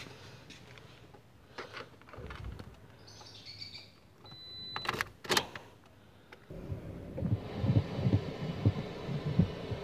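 Inside a Toyota car: a few short electronic beeps and a held beep about three seconds in, then two sharp clicks a little after five seconds. From about six and a half seconds, the engine is started by push button and runs with a steady low rumble.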